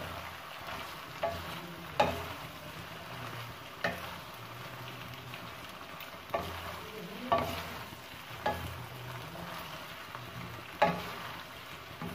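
Wooden spatula stirring macaroni and vegetables in a stainless steel pan, with a steady low sizzle from the hot pan and sharp knocks of the spatula against the pan every second or two.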